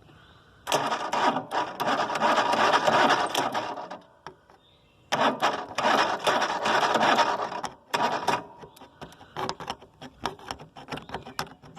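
Riding lawnmower's starter motor cranking the engine in two bursts of about three seconds each, on a partly dead battery, without the engine catching. Scattered light clicks follow.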